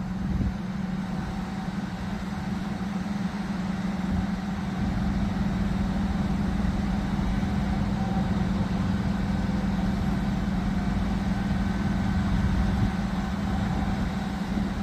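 A crane's engine runs at a steady speed while it holds and positions a load, giving an even low hum with a faint higher whine over it.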